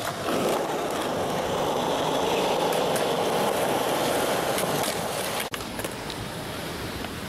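Skateboard wheels rolling on concrete, a steady rolling noise. It cuts off abruptly about five and a half seconds in, leaving fainter background noise.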